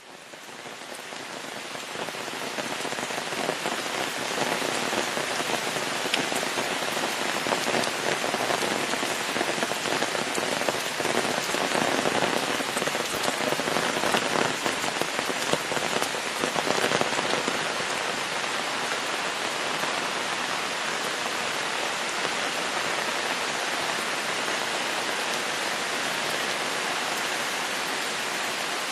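Steady rain falling, a dense patter of drops, fading in over the first couple of seconds.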